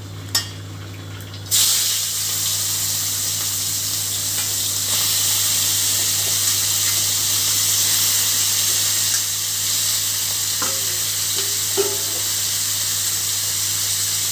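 Tiger prawns (bagda chingri) going into hot oil in a kadai and frying. A loud, steady sizzle starts suddenly about a second and a half in and keeps going, over a low steady hum.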